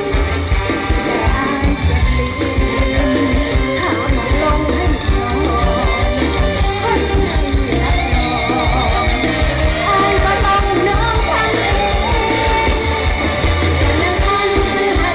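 Mor lam troupe's live stage music played loud through a PA: a singer with a wavering, ornamented voice over a steady, bass-heavy beat.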